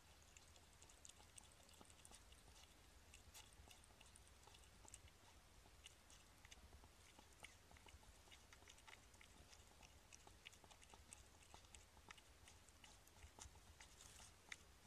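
Faint, irregular crackling and rustling of dry straw as a hedgehog stirs in its nest, over a steady low hum.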